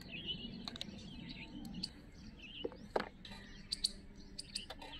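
Birds chirping, with a few light clicks and taps of a metal spoon against steel bowls as cooked rice-flour dough is scooped out; the loudest tap comes about three seconds in.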